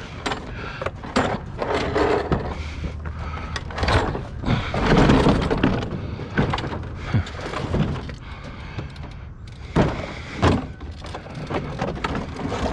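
Scattered knocks and clanks of junk items being handled, with a longer stretch of rattling and scraping about five seconds in.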